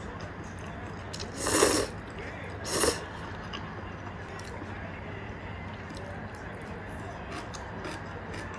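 A person slurping instant ramen noodles: two loud slurps about a second apart, then a few faint clicks.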